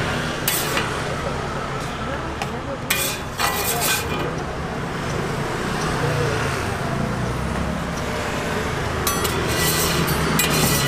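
Busy street-stall ambience: a steady hum of traffic and background voices, with a few short clacks and scrapes of metal utensils on the steel griddle and trays, at the start, about three seconds in, and near the end.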